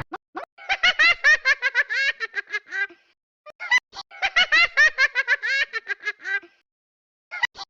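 A baby laughing in long bouts of rapid, high-pitched giggles: one bout from just after the start to about 3 s in, another from about 4 s to 6.5 s, and a third beginning near the end.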